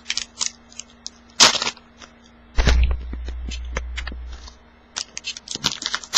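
Foil card packs crinkling and tearing open and trading cards being handled, in many short crackles. A sharp crack comes about a second and a half in, and a heavy thump just before the middle is followed by a low rumble lasting a couple of seconds.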